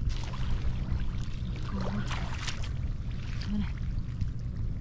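Wind rumbling on the microphone, with water splashing and squelching in shallow floodwater and mud as boots wade and a hand reaches in for eggs, the splashing strongest about two seconds in.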